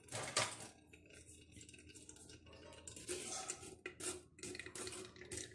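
A metal spoon clinking and scraping in a stainless-steel mesh sieve, stirring thick blended oat milk to push it through the strainer. There is a louder clatter about half a second in, then softer, irregular scraping strokes from about three seconds in.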